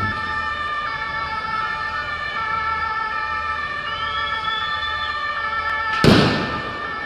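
Several steady high tones sounding together over a background hiss, siren- or horn-like, with a single loud bang about six seconds in.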